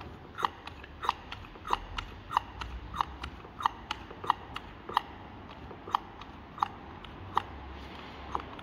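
Hand-held pistol-grip vacuum pump being squeezed over and over, a sharp click with a short squeak on each stroke, about one and a half strokes a second. It is pulling vacuum on an oil cooler's water passages to test for an internal leak between the oil and water sides.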